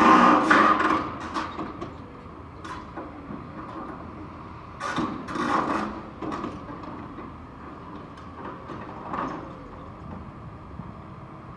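Excavator's hydraulic demolition shear gripping and bending a steel lattice tower: bursts of metal crunching, creaking and screeching, loudest at the start, again about five seconds in and around nine seconds, over the steady running of the excavator.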